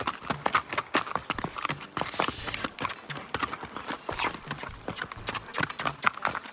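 Horses' hooves clip-clopping on a dirt road, a quick, uneven run of hoofbeats from a black stallion and the grey horse beside it moving at a lively, high-stepping gait.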